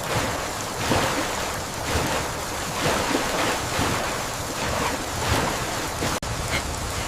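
Turbulent floodwater rushing and surging in irregular waves, with wind noise over it. The sound cuts out briefly about six seconds in.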